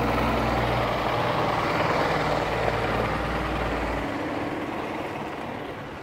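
Iveco diesel garbage truck driving past and pulling away, its engine running steadily at first, then fading over the last couple of seconds as it moves off.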